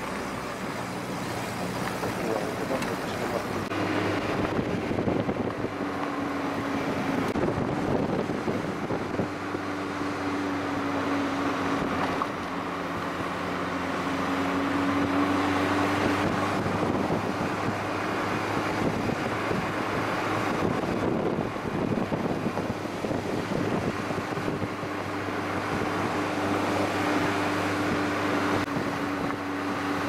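A motor vehicle driving along a road: a steady engine hum that wavers slightly in pitch, over a constant rush of road noise.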